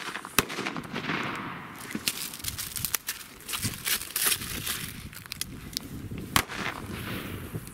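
Firecrackers going off: scattered, irregular sharp cracks and pops, the loudest about six and a half seconds in, with a rustling hiss about a second in.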